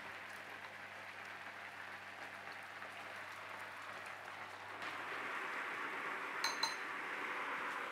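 Faint steady hiss while butter and flour are worked together in a glass bowl, with one short, light clink of a metal spoon against the glass bowl about six and a half seconds in.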